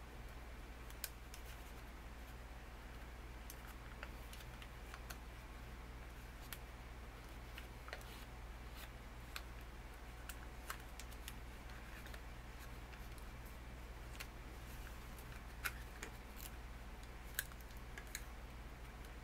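Origami paper being folded and creased by hand, with scattered small crackles and clicks of the crisp paper and a few sharper ones near the end. A steady low hum runs underneath.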